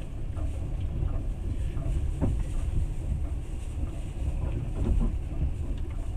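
Passenger train running along the track, heard from inside the carriage: a steady low rumble of the wheels on the rails, with a few short knocks.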